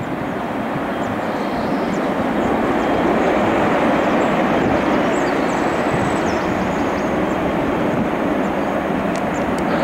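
Boeing 757's jet engines and its landing roll on a wet runway: a loud, steady rushing noise that builds over the first few seconds and then holds, easing slightly near the end.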